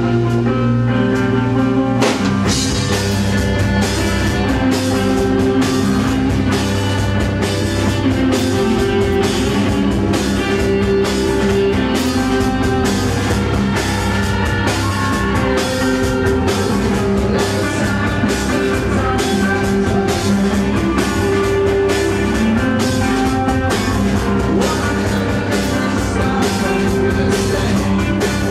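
Live rock band playing loud, with sustained, droning electric guitars and bass; the drum kit comes in about two seconds in and keeps a steady beat.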